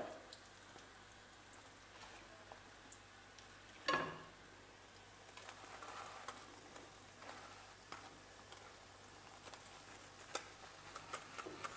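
Faint sizzling of small ring doughnuts frying in a pan of oil, with scattered light clicks and taps from the spoon, plate and tool. A short louder sound comes about four seconds in, and a cluster of ticks near the end.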